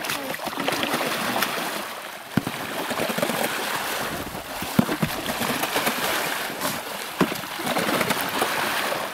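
Snow shovels scooping and pushing through slushy water in an open hole in the ice, a steady sloshing wash with scattered knocks and scrapes of the blades.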